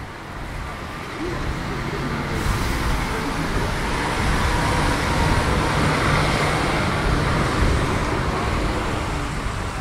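City bus passing close by on a wet street, its engine and the hiss of tyres on the wet road swelling to a peak midway and easing off slightly, over general traffic.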